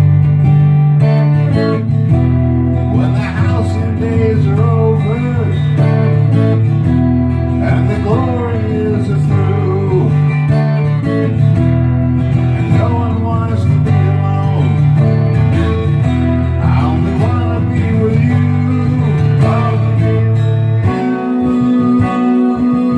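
Acoustic guitar playing the instrumental intro of a song. Sustained low notes run under it, with a wavering, pitch-bending melody line above.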